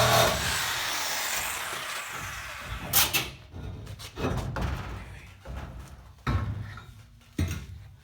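A power tool cutting metal stops just after the start and fades away over the next couple of seconds, then four separate sharp knocks of metal pieces being struck or set down follow.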